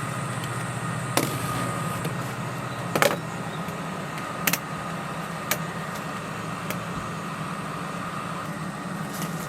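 Portable camping air conditioner running with a steady low hum and a thin whine. A few sharp clicks sound over it, the loudest about three seconds in.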